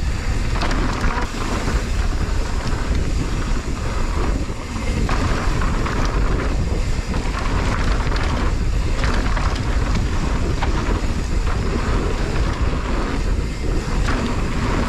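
Wind buffeting the microphone of a mountain bike rider on a fast descent, over a steady low rumble from the tyres on the dirt trail and the bike rattling.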